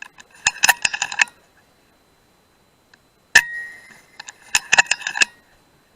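A .177 FX Dreamline PCP air rifle fires once about three and a half seconds in: a single sharp crack with a brief metallic ring. Before and after it come quick runs of clinking clicks.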